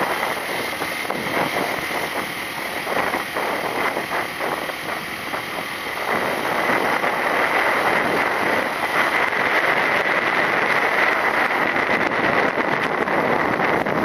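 Wind rushing over the microphone while a motorcycle runs underneath, as heard when riding; the noise grows louder about six seconds in.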